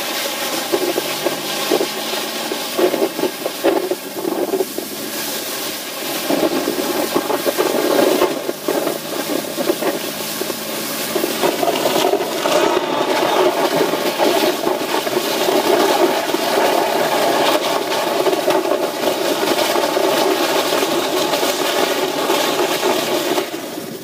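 A car driving slowly along a slushy, snowy lane: a steady rushing of tyres through the slush, with the engine running low underneath.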